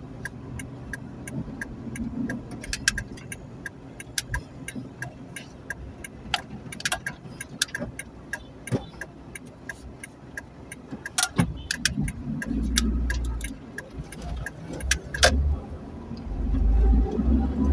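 Ambulance running without its siren, with many irregular clicks and rattles over a low rumble. The rumble grows louder about twelve seconds in and again near the end.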